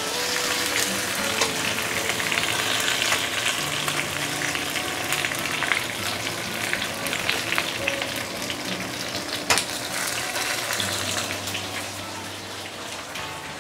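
Whole snapper frying in oil on banana leaves in a pan, sizzling and crackling steadily, with one sharp click about nine and a half seconds in.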